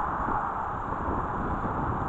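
Wind buffeting the action camera's microphone in an uneven low rumble, over a steady hiss.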